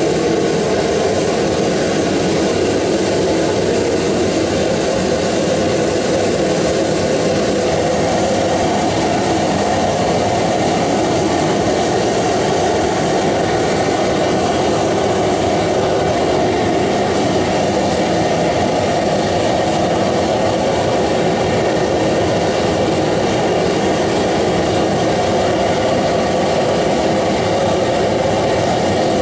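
Vevor stainless steel twin-burner propane gas forge running, its burners making a steady rushing noise that stays even throughout.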